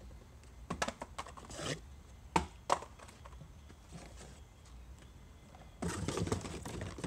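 A cardboard box and the nested metal cook set inside it being handled as the set is lifted out. A few sharp knocks and taps come in the first three seconds, then a longer stretch of scraping and rustling starts about six seconds in.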